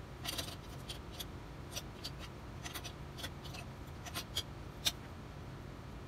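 Metal parts of a compass plane clicking and tapping as they are handled and fitted together by hand: a run of irregular light clicks, the sharpest near the end.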